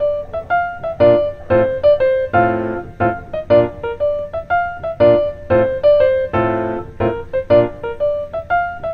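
Background music: a light piano tune of short notes at a steady, bouncy pace.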